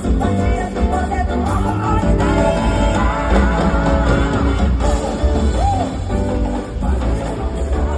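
Live band music with a woman singing a Brazilian carnival song over a strong steady bass beat.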